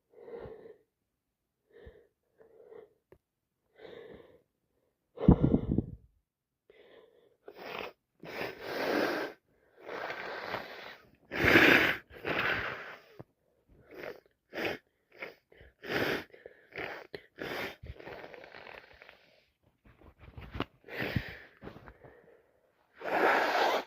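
A person with a heavy, bunged-up head cold hitching and sneezing over and over: catching breaths, then a run of sneezes, the loudest about halfway through.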